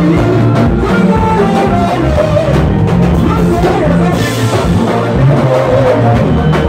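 Live Congolese rumba band playing a sebene, the fast dance section: a drum-kit groove with singers over it, loud and continuous.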